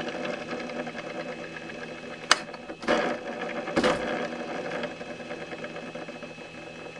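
Small electric cooling fan inside the model jet's fuselage whirring steadily. A sharp click a little after two seconds in and two brief rubbing bursts around three and four seconds in come from the landing-gear wheel being spun by hand.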